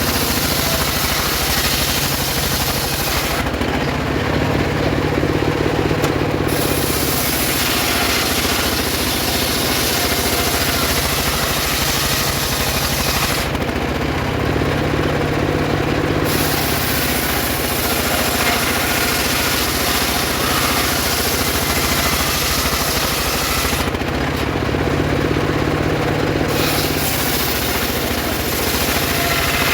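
Homemade circular saw ripping sengon wood into boards, running loud and continuous. Three times, about every ten seconds, the high cutting noise drops away for a few seconds and only the lower drive noise carries on, between passes through the wood.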